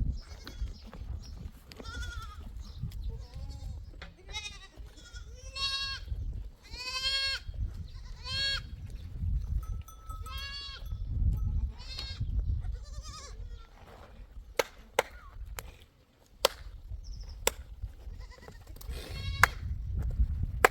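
Goats bleating, several wavering calls one after another, followed by a series of sharp clicks or knocks in the last third, over a low rumble.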